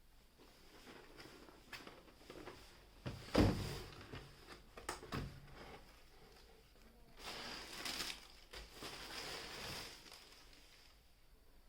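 Handling noises from unboxing a cardboard shoebox: a thump a little over three seconds in and a few light knocks and clicks, then about three seconds of rustling packaging from around seven seconds in.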